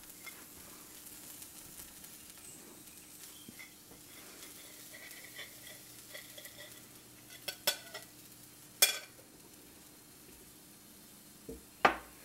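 Faint sizzling from the hot non-stick frying pan, broken by a few sharp clicks of the spatula against the plate and pan, the loudest about nine seconds in and another near the end.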